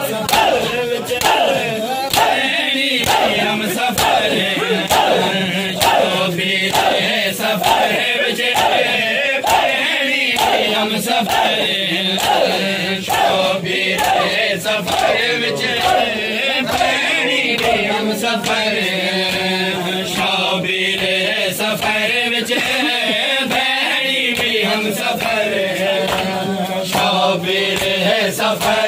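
A crowd of men chanting a Muharram lament in unison, with sharp slaps of hands on bare chests (matam) repeating in time with the chant, a bit under one a second.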